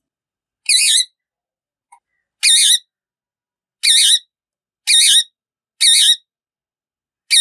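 A pet parrot giving short, high-pitched calls, six in a row spaced about a second apart.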